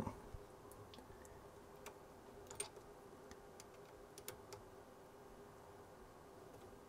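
A few faint, sharp clicks of a small Allen key working a grub screw in a 3D printer's hot-end block, over near-silent room tone; the plainest click comes about two and a half seconds in.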